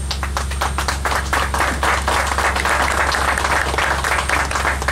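Audience applauding: a dense round of clapping that thins out near the end.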